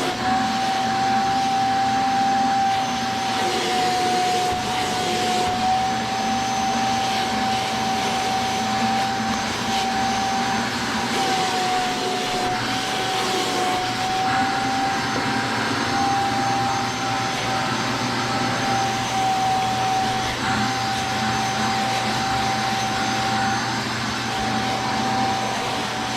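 Shark Vertex vacuum cleaner running steadily at full suction through its edging tool, with a constant high whine that wavers slightly in pitch as the tool is worked over soft carpet pile to pull out furniture indentations.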